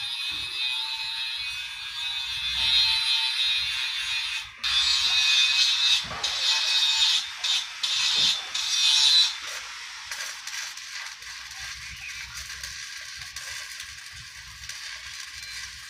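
Stick-welding arc crackling and hissing against steel. It breaks off and restrikes in a few short gaps, then drops to a softer crackle after about nine and a half seconds.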